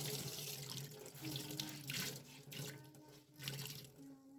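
Water running from a kitchen tap into the sink, splashing unevenly as the flow hits whatever is under it.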